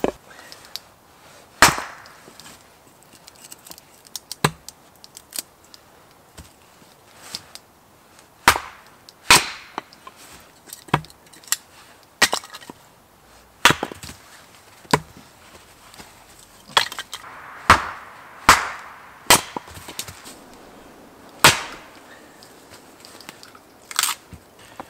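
Axe splitting firewood on a chopping block: about a dozen sharp chops at irregular intervals, one to a few seconds apart.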